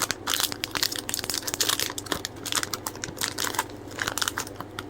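Blind-bag packaging crinkling and rustling as it is cut and torn open by hand, in quick irregular crackles.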